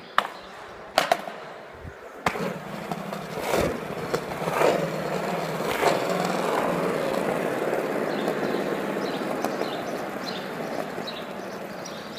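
Hard wheels rolling over concrete, after a few sharp clacks in the first two seconds; the rolling swells to its loudest around the middle and then slowly fades.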